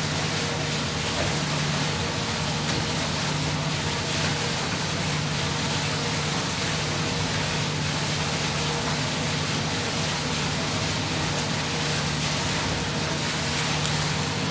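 Steady low drone of a ship's running machinery, with an even hiss over it.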